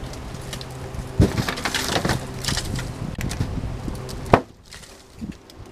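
Footsteps through long grass, crunching and snapping dry twigs and sticks underfoot, with one sharp snap about four seconds in.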